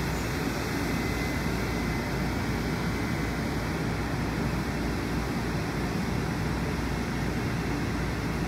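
Steady hum of a Long Island Rail Road M7 electric multiple-unit train standing at the platform, its onboard equipment running.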